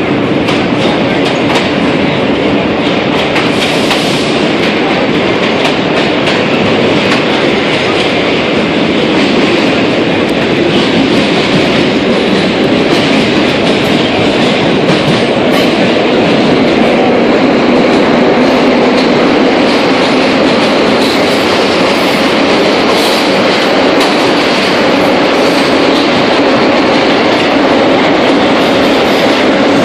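Vintage R1/R9 IND subway car running through a tunnel, heard from inside the car: a loud steady rush of wheel and car noise with rapid clicks as the wheels pass over rail joints.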